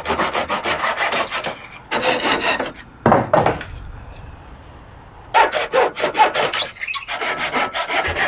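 Handsaw cutting through a wooden roof batten in quick back-and-forth strokes. The sawing stops for a moment about four seconds in, then starts again.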